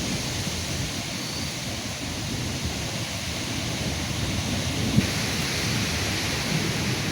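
Thunderstorm rain: a steady hiss with a low rumble underneath, and one brief knock about five seconds in.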